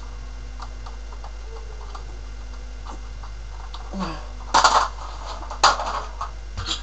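Handling noise as someone moves about close to the microphone: a few light clicks, then two short, louder rustling bursts about four and a half and five and a half seconds in, over a steady low hum.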